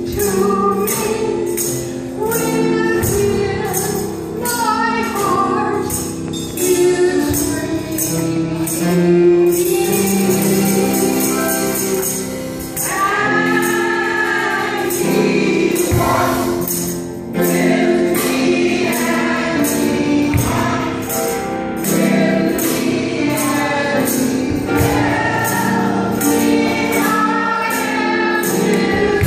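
A woman singing a gospel song into a microphone, with other voices joining in and a steady beat behind the singing.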